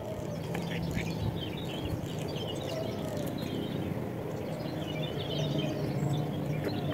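Outdoor ambience at the edge of a pond: a steady low background rumble with faint bird chirps scattered through it, and a faint low hum that comes and goes.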